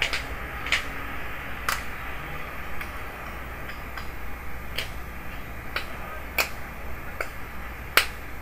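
Scattered sharp clicks and ticks, about one a second at irregular intervals, from a small cut piece of smoked plexiglass being handled and worked in gloved hands, the sharpest click near the end. A steady hiss runs underneath.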